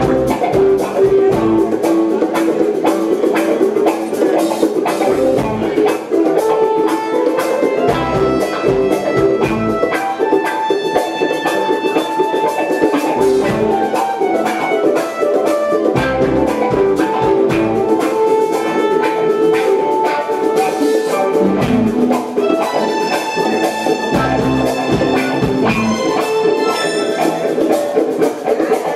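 Live band playing an R&B tune with electric guitar, drum kit and keyboard, sustained chords over a recurring bass line.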